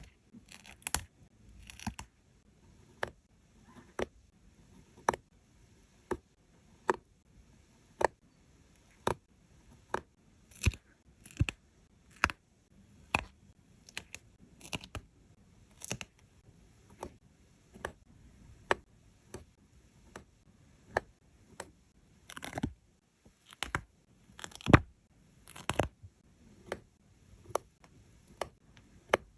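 Close-up sticker crafting: crisp small clicks and taps about once a second as stickers and paper pieces are handled and pressed down. A few short scraping rustles come in between, the loudest around three-quarters of the way through.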